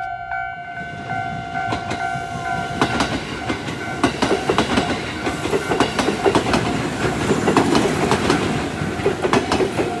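Level-crossing alarm sounding as two steady tones. From about three seconds in, a JR 211-series electric train passes close by, its wheels clacking over the rail joints and crossing, and drowns the alarm.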